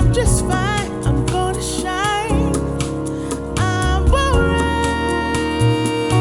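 Recorded music: a mix with deep bass, held chords and a wavering lead melody with vibrato, played back through planar-magnetic headphones and picked up by measurement microphones.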